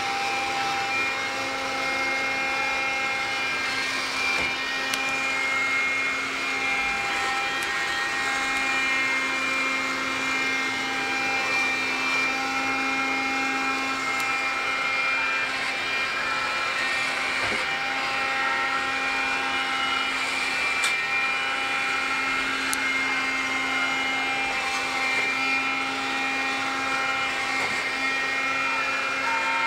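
iRobot Scooba floor-washing robot running on a tiled floor: a steady motor whine and hum made of several pitched tones, dipping briefly now and then as it works, with a few faint clicks.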